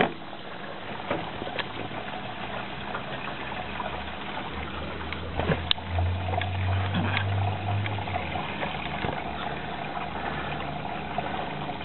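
Hoover Electra 540 Dual Spin washing machine filling, with water running into the drum and a steady low hum underneath. A few sharp clicks come partway through.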